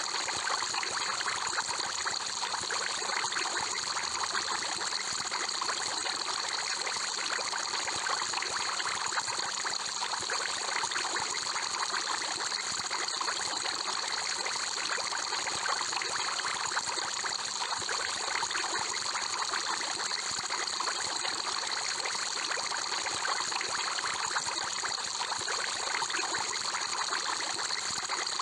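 Aquarium air bubbler running steadily: a continuous bubbling and trickling of water, a dense crackle of small bubbles with no change in level.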